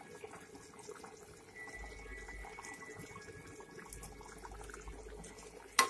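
Pork curry boiling in an aluminium pot on a gas stove: a faint, steady bubbling. Near the end there is one sharp knock.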